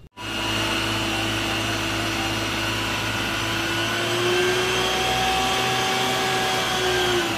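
Isuzu water tanker truck running its pump while the roof water cannon sprays: a steady engine and pump drone with the hiss of the jet, rising slightly in pitch about four seconds in.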